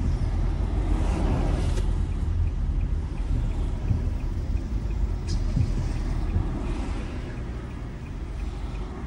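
Steady low rumble of a car's engine and tyres heard from inside the cabin while driving in city traffic, growing a little quieter near the end.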